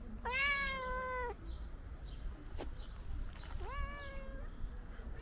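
Fluffy white tabby cat meowing twice: a long meow of about a second, then a shorter, fainter one a few seconds later, with a single sharp click in between.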